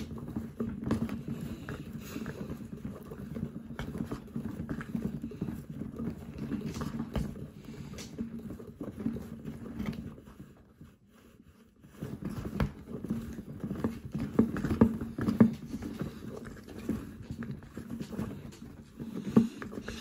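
Small electric motor of a homemade toy washing machine humming as it turns a plastic drum, with a wet towel tumbling and slapping in the water in irregular thumps. About ten seconds in the drum stops for under two seconds, then starts turning again.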